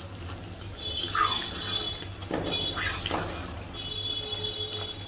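Ladle stirring and scraping thick chicken curry in a pot, a few scrapes over a steady low hum, with a thin high whine in three short stretches.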